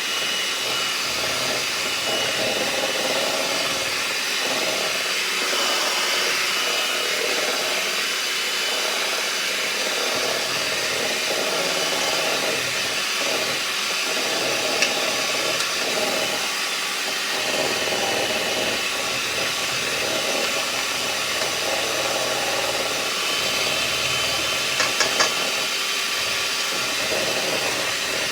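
Electric mixer running steadily, beating butter and eggs into cake batter, with a few brief taps near the end.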